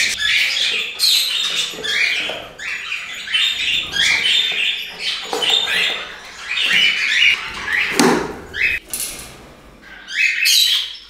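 Budgerigars chirping and chattering, many short chirps overlapping one after another, with a sharp knock about eight seconds in.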